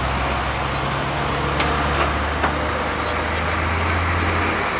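Steady city road-traffic noise, with a low engine drone that drops away near the end and a few faint clicks.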